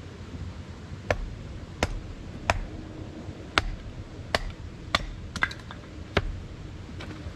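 Hatchet chopping wood on a log chopping block, splitting small pieces: about eight or nine sharp, irregularly spaced strikes, including a quick double strike about two-thirds of the way in, over a steady low rumble.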